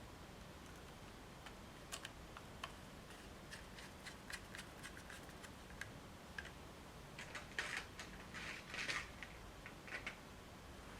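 Light metallic clicks and ticks of a small Torx screwdriver turning the tiny mounting screws into a solid-state drive, with a cluster of louder scratchy handling sounds about three-quarters of the way through.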